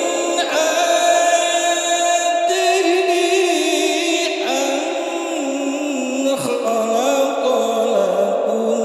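A man reciting the Quran in the melodic tilawah style, one amplified voice holding long notes with wavering ornaments.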